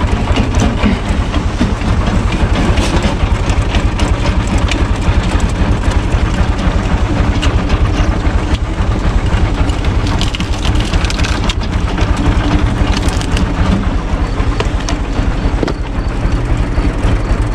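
UTB Universal 445 DT tractor's four-cylinder diesel engine running steadily under load, driving a shaft-driven cone (screw) log splitter, with scattered cracking and crunching as wood splits on the spinning cone.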